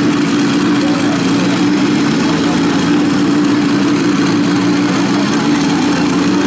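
Off-road buggy engine running steadily at a low idle, an even hum with no revving.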